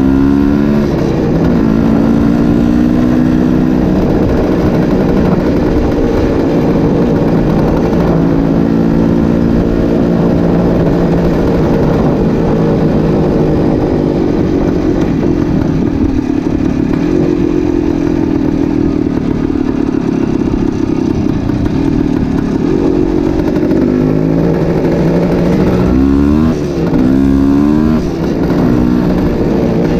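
1972 Yamaha RT2 360's single-cylinder two-stroke engine running under way. Its pitch climbs and steps down several times in the first half as it pulls through the gears, then runs steadier. Near the end the throttle closes and reopens, with two short dips in level.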